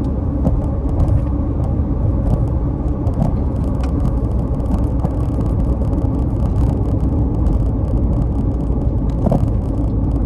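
Road and engine noise inside a moving car's cabin: a steady low rumble with small clicks and ticks throughout.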